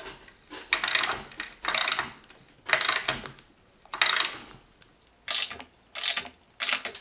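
Ratchet wrench clicking on its return strokes while driving a 13 mm screw into a wooden board. Each swing of the handle gives a short rasping run of clicks, about once a second at first, then quicker and shorter strokes from about five seconds in.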